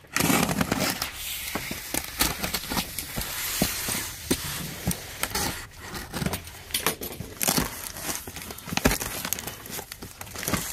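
A box cutter slicing through packing tape on a cardboard carton, then the cardboard flaps pulled open and the packaged items inside handled. The sound is an irregular run of tearing, crackling and rustling with many small clicks.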